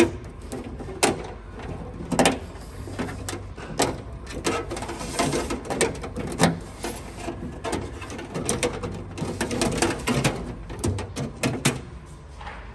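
Tailgate lock wire being pulled through a rubber grommet, with irregular clicks and rustling as the cable slides and is handled.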